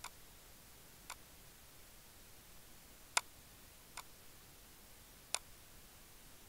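Five short, sharp clicks at uneven spacing over faint background hiss; the loudest comes about three seconds in.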